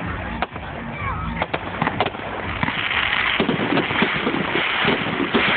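Fireworks going off, heard through a phone's microphone: a few sharp bangs in the first two seconds, then a thicker, continuous rushing noise.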